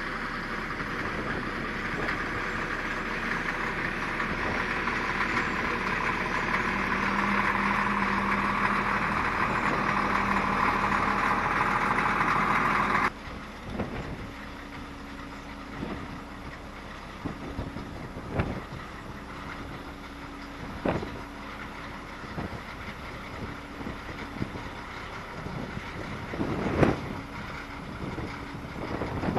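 Caterpillar 14G motor grader's diesel engine running under load close by, pushing crushed gravel and growing steadily louder. About 13 seconds in it drops abruptly to the same grader working farther off, its engine fainter, with scattered short thumps and a couple of louder bumps near the end.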